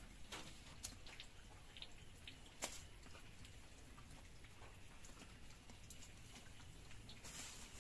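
Faint clicks and crackles of thin dry sticks being pushed into a mud stove and catching fire, with one sharper snap about two and a half seconds in and a brief soft hiss near the end.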